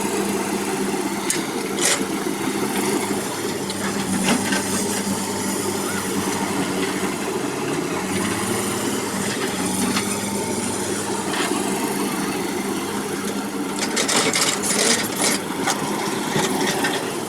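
Excavator's diesel engine running steadily, its pitch shifting briefly about eight seconds in, with a few sharp knocks and a cluster of them near the end.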